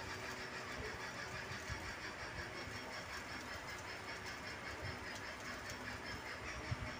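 Faint, steady background hum with light noise: room tone with no clear single source. There is a small tap near the end.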